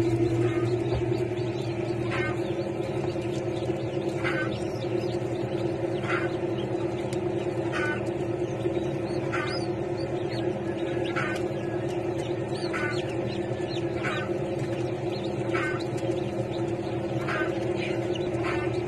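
Chick peeping, short calls repeated about every one and a half to two seconds, over a steady low hum.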